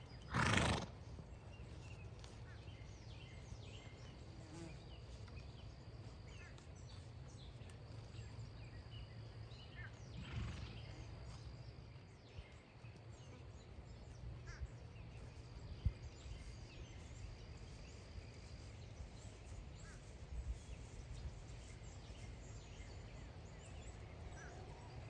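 A grazing horse gives one short, loud snort about half a second in, and a fainter one about ten seconds in. Faint bird chirps and a high, steady insect tone that comes and goes run beneath.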